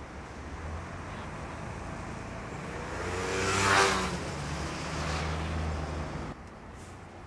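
Street traffic: a car passes close by, growing louder to a peak a little under four seconds in and falling in pitch as it goes. A low engine hum follows and cuts off suddenly about six seconds in.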